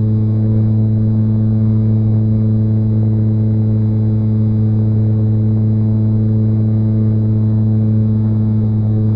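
RC plane's motor and propeller heard from a camera strapped to the airframe, a loud, steady droning hum at constant throttle in level flight.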